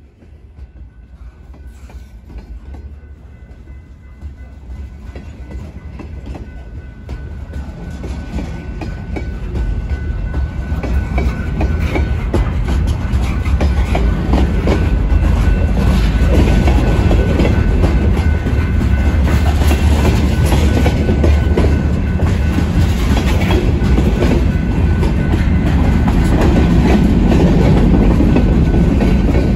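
Freight train cars rolling past at close range, a low rumble with many quick clicks of wheels crossing rail joints. It grows louder over the first fifteen seconds or so, then holds steady.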